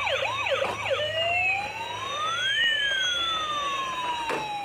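Electronic emergency siren: a fast, repeating yelp that changes about a second in to a slow wail. The wail rises and falls, with a second siren tone gliding the opposite way across it.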